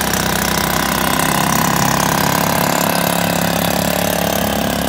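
Boat engine running at a steady speed, loud and even throughout.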